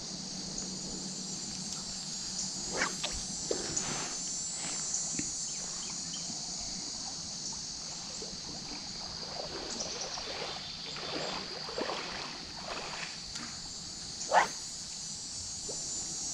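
Steady high-pitched insect chorus, with a few faint brief sounds and one short, louder sound about fourteen seconds in.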